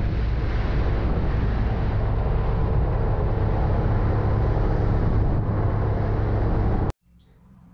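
Outboard motor on a small aluminium boat running at speed, with water rushing and wind on the microphone; the sound cuts off abruptly near the end.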